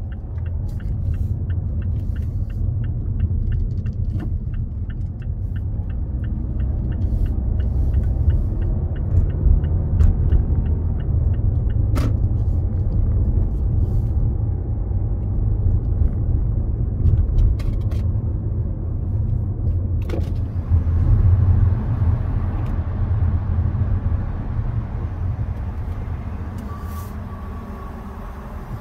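Car cabin noise while driving: a steady low rumble of engine and tyres on the road. A light regular ticking about twice a second runs through the first eight seconds or so.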